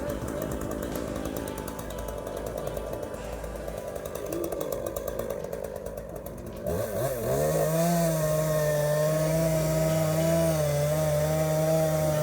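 Chainsaw running. About seven seconds in, its pitch dips and climbs back, then it holds a steady high-throttle note.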